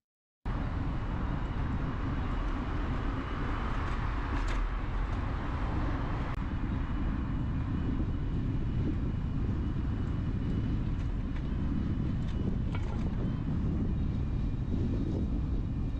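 The riding sound from a bicycle-mounted camera: a steady rush of wind on the microphone and rolling road noise, with a few faint ticks. It starts about half a second in.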